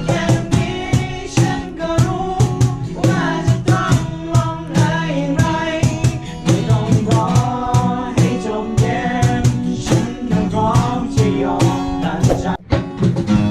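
Background music: a song with a sung melody over a steady drum beat and guitar.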